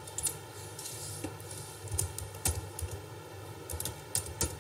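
Computer keyboard keys being tapped while a word is typed: a scatter of short, irregular clicks over a steady faint hum.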